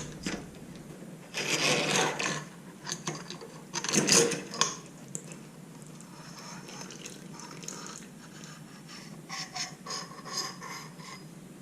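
Metal motorcycle fork parts being handled and worked, scraping and rubbing in a few short bursts with a quieter stretch between.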